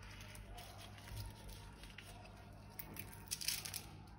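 Faint handling of slime: soft squishing with scattered crackles, and a short burst of sharp crackling clicks about three and a half seconds in.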